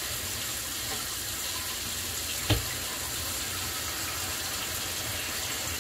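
A steady rushing noise, like water running, with a single sharp knock about two and a half seconds in.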